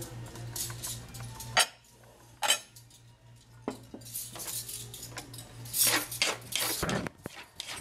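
Clinks and knocks of a serving spoon and fork tossing romaine lettuce in a wooden salad bowl, with a few sharp clicks among them. A steady low hum runs underneath and stops about a second before the end.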